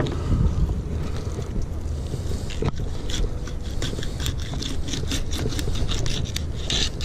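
Fillet knife scraping through a tripletail's tough, scaled skin and along its backbone in a quick series of short strokes, over a steady low rumble of wind on the microphone.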